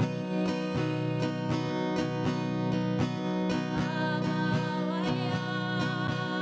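Strummed acoustic guitar accompanying a singer in a hymn-style song, with long held, wavering sung notes over a steady strum.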